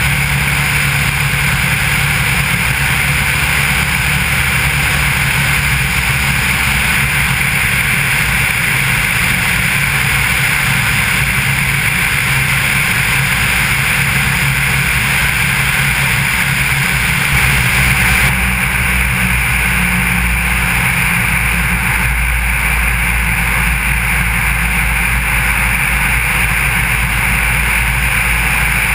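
Maule M4 floatplane's engine and propeller running in flight, heard from under the wing tip with a steady rush of wind. About two-thirds of the way in, the engine note shifts lower as the plane comes down toward the water.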